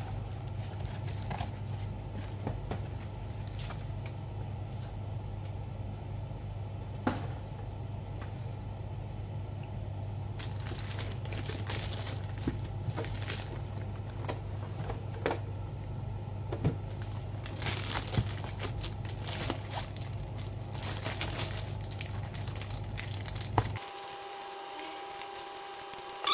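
Keyboard box and its packaging being unboxed by hand: plastic and paper crinkling and tearing, with scattered clicks and knocks. A steady low electrical hum underneath stops near the end.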